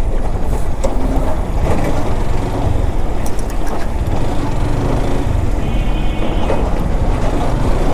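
Steady low rumble of a motorcycle riding slowly on a town street close behind a truck: the bike's engine and road noise mixed with the truck's engine just ahead.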